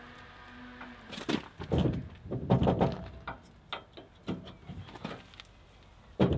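Steel hitch pin being worked through the holes of a drop-hitch shank and the truck's receiver tube. A run of metal clunks and scrapes comes about one to three seconds in, followed by a few lighter clicks.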